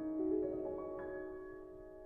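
Background music: soft piano-like notes struck and left to ring, a new chord about a second in, fading away.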